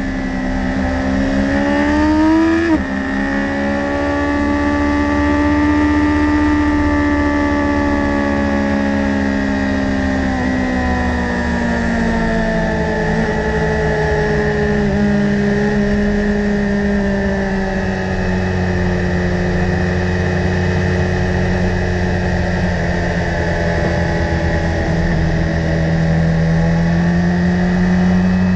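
2015 BMW S1000RR's inline-four engine at high revs, heard onboard with wind rush. The note climbs, drops sharply at a gear change about three seconds in, then slowly falls in pitch and levels out.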